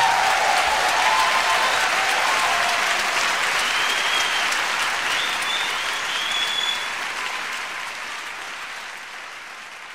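Live audience applauding at the end of a song, with a few cheers, the applause slowly fading away toward the end.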